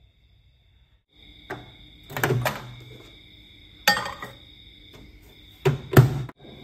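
Clinks and knocks as a plate of cookie is handled into a microwave oven, then the microwave door shut with a thunk, the loudest sound, near the end. A faint steady whine sits under it all from about a second in.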